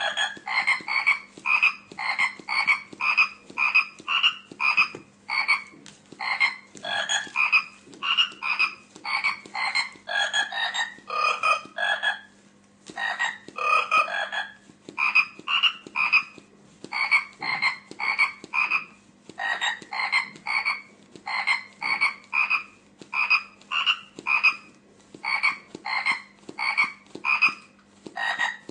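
Battery-operated plush frog puppet playing electronic frog croaks through its small speaker: short calls about two a second, each at a slightly different pitch, with a brief pause about halfway through. A steady low hum runs underneath.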